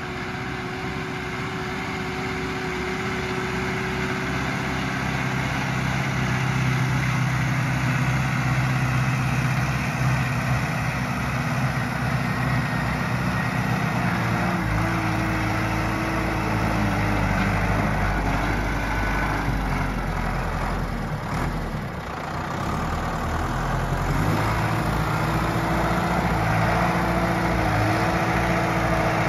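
Zetor Forterra 140 HSX tractor's diesel engine running under load as it tows a log-laden forestry trailer. The engine grows louder over the first several seconds as it nears. Its note deepens about halfway through and dips briefly about three-quarters through.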